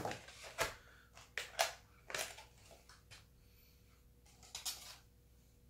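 Packaging of a computer mouse being opened and handled: irregular rustling, scraping and crinkling, the loudest right at the start.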